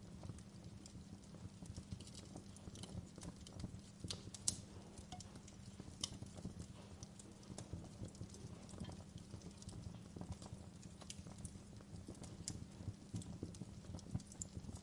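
Log fire crackling in a fireplace: irregular sharp pops and snaps over a steady low rumble, with one louder pop about four and a half seconds in.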